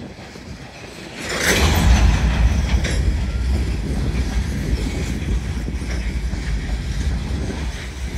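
Empty coal hopper cars of a unit coal train rolling past, with a heavy low rumble and wheel clatter. The sound swells sharply about a second in.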